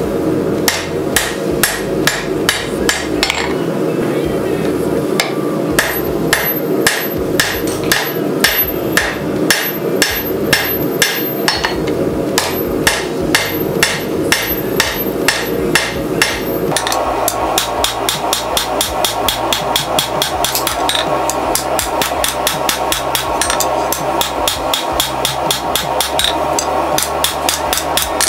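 Hand hammer striking a red-hot rebar knife blade on an anvil, drawing out and shaping the hot steel. The blows come in an even, rapid rhythm of about two to three a second, with a brief pause about four seconds in.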